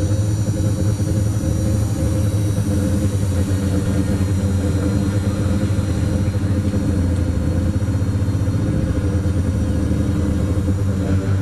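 Quadcopter's electric motors and propellers running steadily in flight: a loud, even drone with a thin high motor whine above it.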